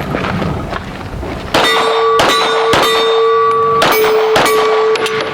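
Rapid pistol shots hitting a steel target, about six in quick succession starting about a second and a half in, with the plate ringing on between hits.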